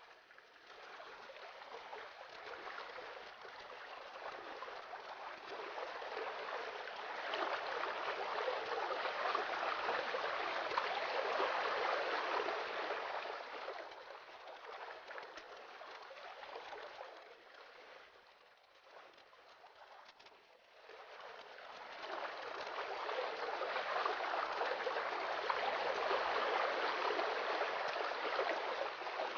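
Water running and splashing in a slate indoor fountain: a steady trickling hiss that grows louder, drops away for a few seconds past the middle, then grows loud again.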